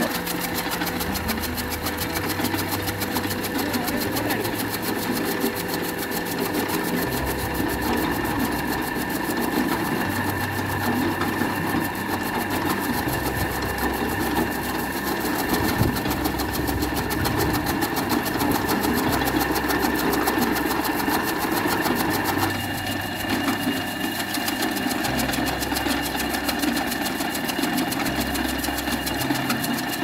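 Electric chaff cutter running, its motor driving the bladed flywheel through a belt as it chops napier grass stalks, with a steady hum over a fast, even chopping rhythm.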